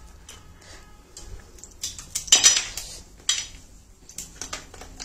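Crisp, fully set sesame-and-jaggery brittle (til patti) clattering on a metal tray and cracking as pieces are picked up and snapped apart by hand: scattered sharp clicks, with the loudest cracks about two and a half seconds in.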